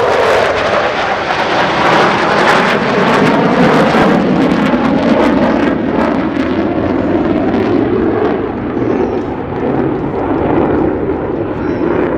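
Two USAF Thunderbirds F-16 Fighting Falcon single-engine fighter jets flying past together: loud jet noise, crackling over the first few seconds and dropping in pitch as they pass, then easing off.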